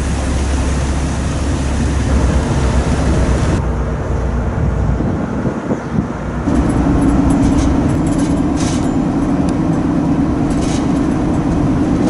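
Car ferry under way: steady engine rumble mixed with rushing wind and water. The sound changes abruptly about three and a half seconds in and again about halfway through.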